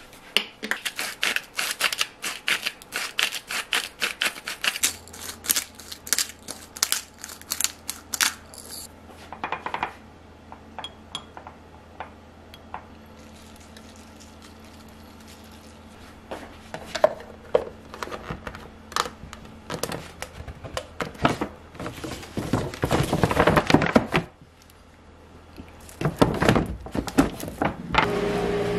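Rapid clinking of a utensil against a small glass dish as oil-and-vinegar dressing is mixed, followed by scattered taps, rustling and clicks of glass and plastic food containers being handled and packed.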